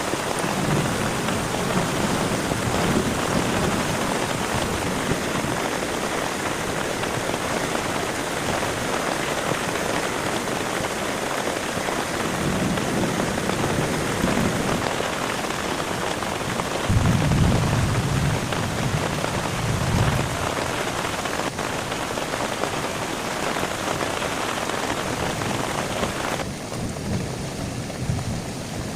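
Heavy rain falling steadily, with low rolls of thunder several times, the strongest about two-thirds of the way through. Near the end the rain hiss drops off suddenly.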